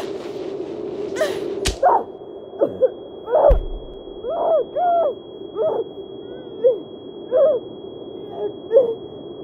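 A physical struggle: scuffling and whooshes, then a sharp hit about two seconds in. After the hit the sound turns muffled under a steady high-pitched ringing tone, the film's effect of a blow dazing the victim. A heavy thud follows, then a string of short strained cries and grunts from the fight on the ground.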